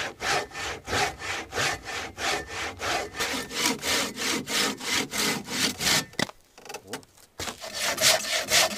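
Hand saw cutting through a firewood log, rapid back-and-forth strokes at about two to three a second. The sawing pauses briefly about six seconds in, then picks up again.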